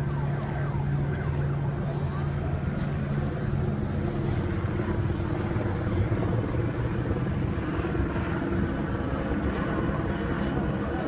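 Diesel engines of parked fire trucks idling in a steady low rumble, its strongest low tone fading about four seconds in.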